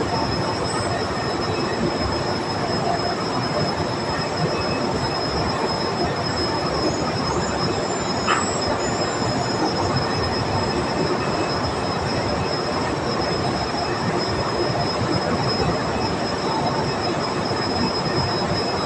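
Steady, loud drilling-rig machinery noise with a thin, steady high whine over it and a short squeak about eight seconds in.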